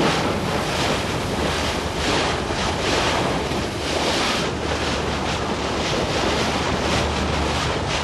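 Rushing sea water and waves breaking along a moving ship's hull, with heavy wind noise on the microphone and a steady low hum underneath.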